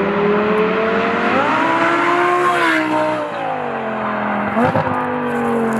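Audi R8's V10 engine running through an Armytrix titanium valvetronic exhaust. Its note rises as it accelerates for about a second, holds briefly, then falls away and settles into a steady drone.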